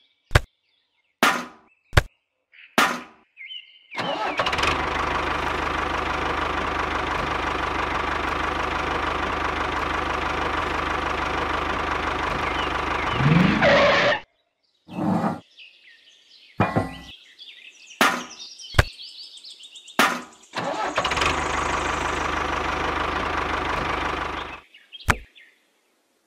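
Tractor engine running steadily for about ten seconds, ending with a brief swoop in pitch, then running again for about four seconds, with short sharp clicks before and between the two runs.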